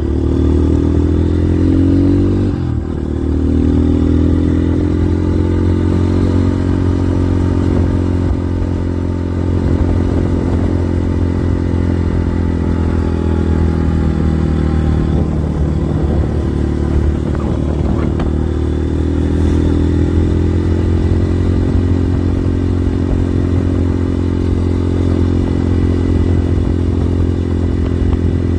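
GPX FSE 250E dual-sport motorcycle's single-cylinder engine running under way. Twice in the first few seconds the revs drop sharply and climb back as it is shifted up, then they hold fairly steady at cruising speed, easing off and picking up again gently in the middle.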